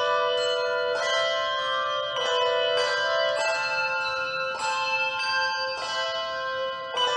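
Handbell choir playing a chorale: chords of bells struck every second or so, each ringing on and overlapping the next.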